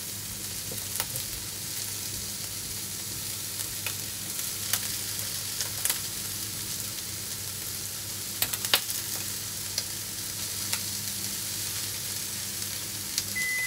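Chicken pieces frying skin-side down in a frying pan, a steady sizzle with occasional sharp pops and clicks. A steady low hum runs underneath.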